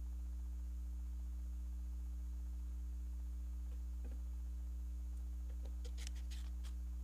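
Steady electrical mains hum, with a few faint ticks about four seconds in and again near the end.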